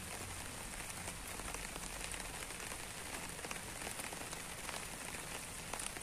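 Steady rain falling on leafy foliage, an even hiss with many small drop ticks.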